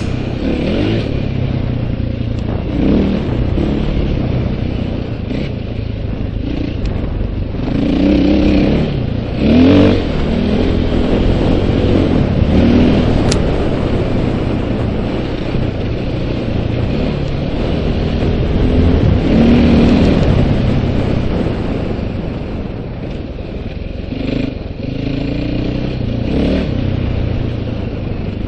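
KTM 450 XC-W single-cylinder four-stroke dirt bike engine running on the trail, its revs rising and falling as the throttle is worked, with louder climbs in pitch about a third of the way in and again about two-thirds through.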